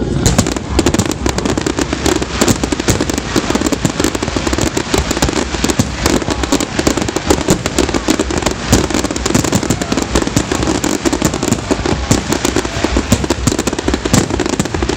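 A dense fireworks barrage: many aerial shells bursting in quick succession, a near-continuous run of overlapping bangs that breaks in abruptly at the start.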